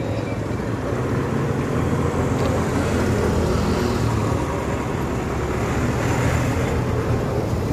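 Passing road traffic: a steady low engine rumble, growing a little louder over the first few seconds.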